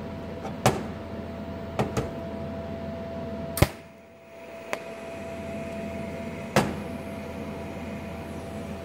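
TIG welder fuse-tacking a hinge tab without filler wire on DC negative: a steady machine hum with a constant tone and several sharp clicks, the loudest a little over a third of the way in as the arc strikes. After that comes a faint high tone for a few seconds while the arc burns.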